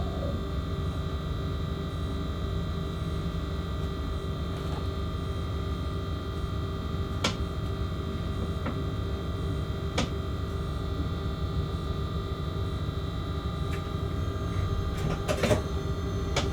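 Freight locomotive running, heard from the cab: a steady electrical whine of several constant tones over a low rumble, with a few sharp clicks about 7, 10 and 15 seconds in.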